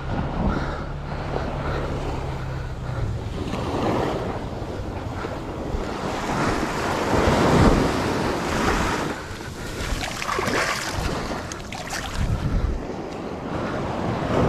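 Ocean surf breaking and washing up the beach, swelling several times and loudest about halfway through, with wind buffeting the microphone.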